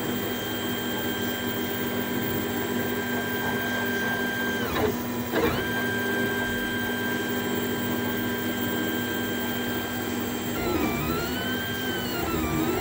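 Leapfrog Creatr HS 3D printer's stepper motors whining as the print head traces a skirt outline: a steady whine held through long straight moves, two quick dips in pitch about five seconds in, and repeated rising-and-falling glides near the end as the head follows curves, over a steady low hum.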